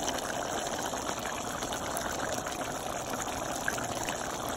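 Pot of pork caldereta boiling, the thick sauce bubbling steadily.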